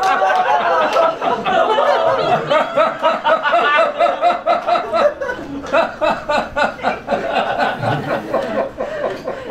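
Audience laughing, many voices in quick rhythmic bursts, easing off somewhat after about five seconds.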